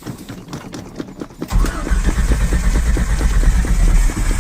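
1995 Ford Ranger's starter cranking the engine in a fast, even rhythm without it catching, during a cold morning no-start. The cranking begins about a second and a half in, after quieter ticking.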